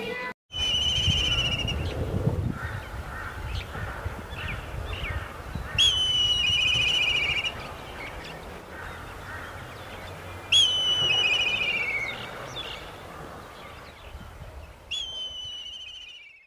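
Black kite calling four times, a few seconds apart. Each call is a whinnying whistle that starts sharply and breaks into a quavering, slightly falling trill lasting over a second.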